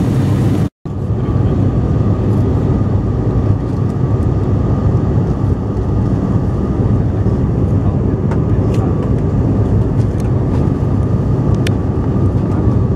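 Jet airliner cabin noise in cruise flight: a steady low rush of engines and airflow heard from inside the cabin, with a faint steady whine above it. It cuts out for a moment just under a second in, then runs on unchanged.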